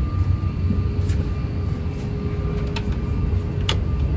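Steady low rumble inside an Airbus A350-1000 airliner cabin, with a faint steady hum over it. A few sharp clicks come in the second half.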